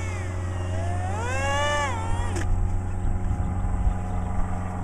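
RC flying-wing plane's motor and propeller whining as the throttle is run up and then cut back, the pitch rising and then falling, as the plane comes in to land in the grass.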